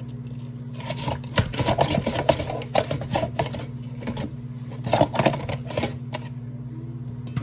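A kitchen vegetable slicer being worked: a quick run of clacks, clicks and knocks as vegetables are cut, in bursts for about five seconds, over a steady low hum.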